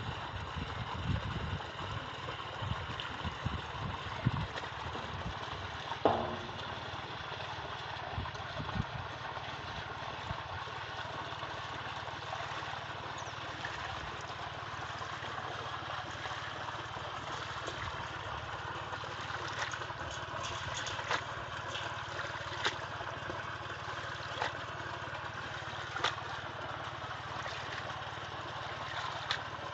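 Water splashing and sloshing as a wire-mesh basket of tilapia fingerlings is dipped and worked in a pond net pen, over a steady low motor hum. Splashes fall in the first few seconds, and a few sharp ticks come later.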